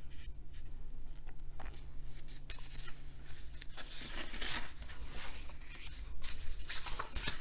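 Glossy pages of a large hardcover art book being turned and handled, a papery rustling and sliding with a few crisp ticks. It starts about two seconds in and is loudest around the middle.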